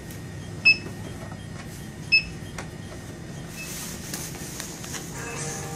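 Checkout barcode scanner beeping at a store register as items are scanned: two sharp, short beeps about a second and a half apart, then a fainter one, over low store background noise.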